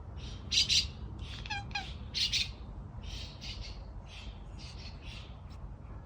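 Birds chirping and squawking in a quick series of short, high calls, the loudest about half a second in and again a little after two seconds.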